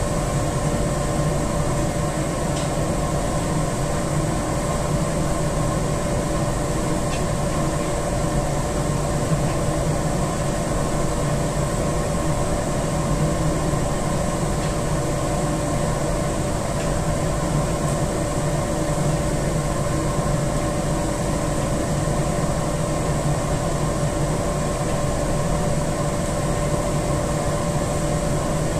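Boiler-room machinery running with a steady, even drone and a constant hum.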